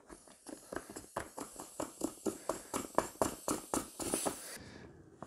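Large plastic screw valve on an Intex Explorer K2 inflatable kayak's side chamber being unscrewed by hand, clicking about five times a second as the cap turns. About four seconds in a sharp hiss of escaping air cuts in briefly, then air keeps rushing softly out of the opened chamber.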